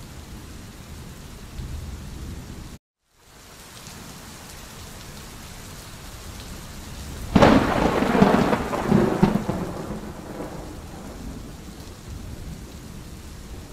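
Steady rain falling, with a sudden crack of thunder about seven seconds in that rumbles on and fades over about three seconds. The sound cuts out completely for a moment about three seconds in.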